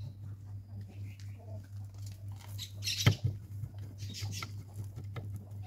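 Gritty bonsai substrate being pressed and worked into the pot by hand, making scattered small scratches and clicks, with one louder knock about three seconds in. A steady low hum runs underneath.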